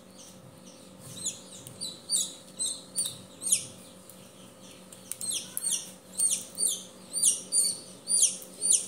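A newly hatched chicken chick peeping, a chick being helped out of a shell whose dried membrane has stuck to its down. Repeated high peeps, each falling in pitch, come sparsely at first, then louder and quicker, about two a second, from about halfway. A faint steady hum runs underneath.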